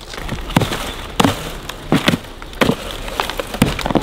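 Repeated chopping blows of a hand tool into a felled palm trunk, about six sharp strikes a little under a second apart.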